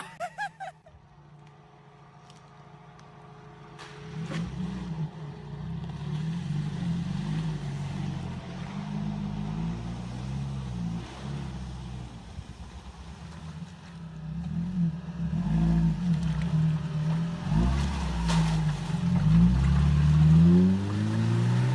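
Off-road 4x4's engine revving under load as it pushes through a mud- and water-filled rut, its pitch rising and falling again and again. It grows louder in the second half.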